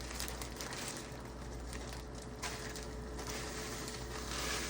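Butter chicken sauce simmering in a skillet: a low, steady sizzle and bubbling with a few soft ticks, over a faint steady hum.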